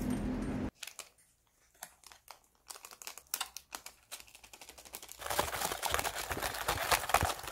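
Paper and cardboard food packaging crinkling and clicking as it is opened and handled, then, from about five seconds in, a continuous rattling rustle of cheese balls being shaken in their cardboard box to coat them in seasoning powder. A brief burst of street traffic noise opens the clip before cutting off.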